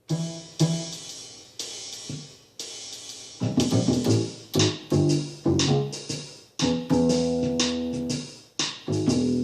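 Bass guitar playing over a drum beat, starting suddenly: plucked notes that ring and fade, the playing filling out about three and a half seconds in.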